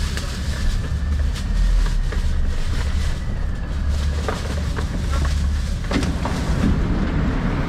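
Moscow Metro 81-775/776/777 'Moskva-2020' train heard from inside the car at a station: a steady low hum from the train's equipment, with a few faint clicks.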